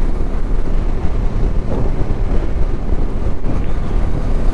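Steady wind rush on the microphone and low rumble from a Bajaj Dominar 250 motorcycle riding at road speed.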